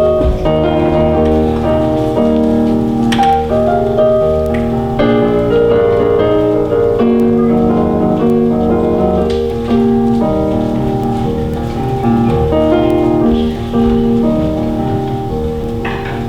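Instrumental music, led by piano or keyboard, playing a melody over held notes and bass as an interlude between sung verses.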